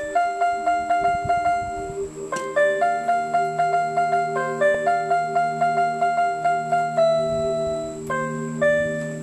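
Portable electronic keyboard played in a piano voice: a melody of quick separate notes, about three to four a second, over sustained lower tones, with one longer held note near the end.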